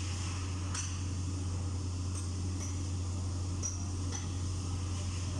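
About five light metal clinks and taps, spaced irregularly, from hand tools and steel parts being handled during the teardown of a hydraulic travel motor. They sound over a steady low hum.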